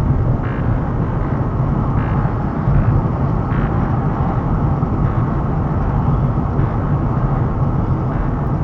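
Steady road noise inside the cabin of a moving car: an even, dense rumble with no break.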